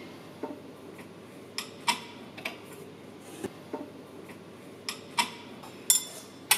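Long steel rod clinking and tapping inside a Subaru EJ20 boxer engine block as it is worked against a piston's gudgeon pin to drive the pin out. Irregular sharp metallic clicks, about a dozen, the loudest near the end.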